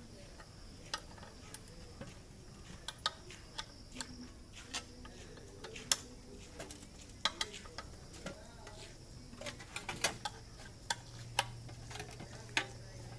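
Irregular light clicks and taps of tools and small hard parts being handled during the geyser repair, with a faint low hum coming in about ten seconds in.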